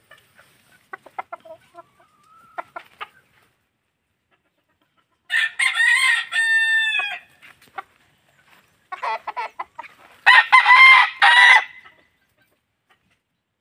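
Gamecock roosters crowing: one full crow about five seconds in and another about ten seconds in.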